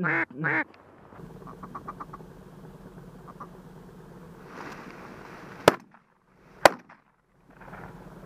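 The last two loud quacks of a mallard-style quacking sequence, most likely a hunter's duck call, then about five seconds in two shotgun shots about a second apart.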